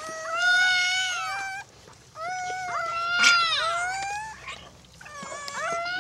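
Newborn Karakachan puppy crying: three long, high, mewing cries, each held for a second or two and falling away at the end, with short pauses between.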